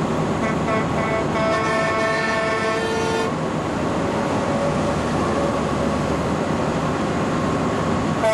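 Steady rumble of a stream of motorcycles and other vehicles passing on a highway below. A vehicle horn gives a few short toots, then a held blast of about two seconds that cuts off about three seconds in.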